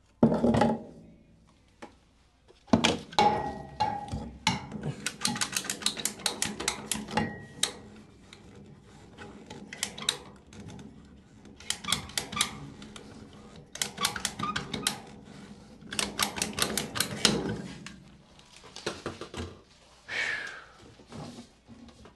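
Repeated runs of rapid clicking and clattering of hard objects, about six clicks a second in each run, from hand work on plumbing parts. A short falling squeak near the end.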